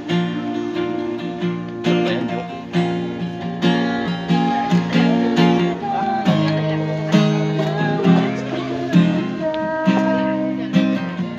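Acoustic guitar strummed in chords, each strum ringing on, with a change of chord about six seconds in.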